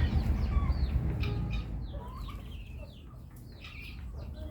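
Chickens calling: many short, falling high-pitched peeps and clucks overlapping. A low rumble is loud during the first second and a half, then fades.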